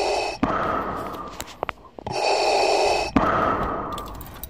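Darth Vader-style respirator breathing: two slow, hissing breath cycles. Each is cut by a sharp click and trails off.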